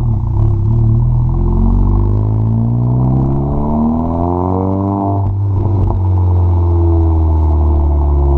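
Car engine running through an AWE Tuning Track exhaust, the revs climbing steadily for about four seconds, then dropping off suddenly with a brief crackle before settling into a steady lower drone.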